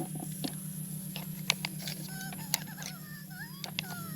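Small plastic toy pieces clicking and tapping a few times as they are handled and set down, over a steady low hum. Faint wavering high tones come in during the second half.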